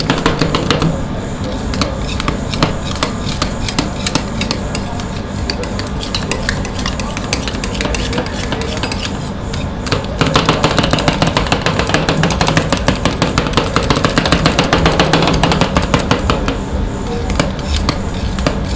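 Metal spatulas chopping and scraping on a steel ice-cream freezing plate: fast, dense clacking of the blade edges against the metal as the freezing mix is chopped and spread.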